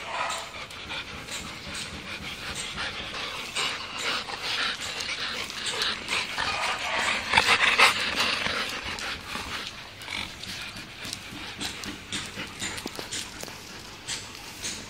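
A dog making breathy, noisy sounds with irregular short scrapes and snuffles, louder for a stretch about halfway through.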